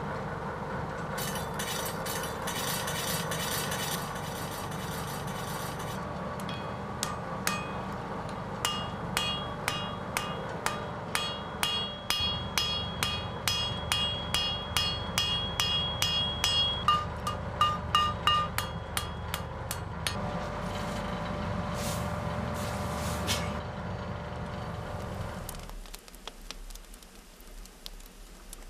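Blacksmith's hand hammer striking hot iron on an anvil while forging the toe clip of a horseshoe: a long run of sharp blows, about two to three a second, many with a metallic ring. Under it is a steady rumble, which stops a few seconds before the end.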